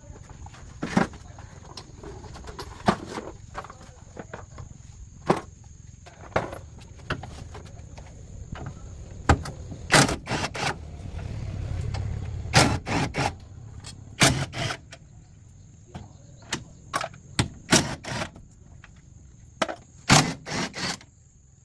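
Irregular knocks, clicks and clanks, some in quick runs of two or three, over a low rumble that swells a little past the middle, with a faint steady high whine underneath.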